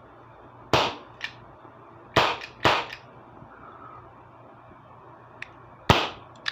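Crosman Vigilante CO2 revolver firing four sharp shots on a freshly fitted, fully charged CO2 cartridge, two of them close together, with a couple of fainter clicks in between.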